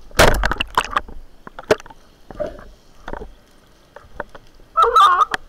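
Underwater spearfishing gear: a loud clattering burst just after the start, as the speargun aimed at the fish is fired, then scattered sharp knocks and clicks of the gun and line. A loud warbling sound comes near the end.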